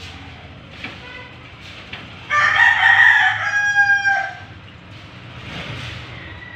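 Rooster crowing once, a loud call of about two seconds starting a little over two seconds in and dropping in pitch at the end, with a few short soft clucks before it.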